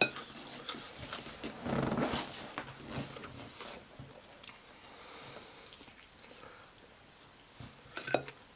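A person chewing a mouthful of crispy-coated fried chicken close to the microphone: irregular crunches and mouth sounds, loudest about two seconds in, then quieter chewing.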